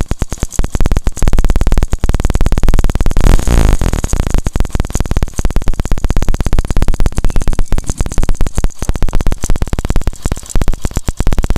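Hero Passion Pro's single-cylinder four-stroke engine running with a metallic chain-like rattle, revved up once around three to four seconds in. The rattle sounds like timing-chain noise but persists after a complete new timing chain set and tappet adjustment; the mechanic traces it to a 10 mm bolt, loosening which silences it.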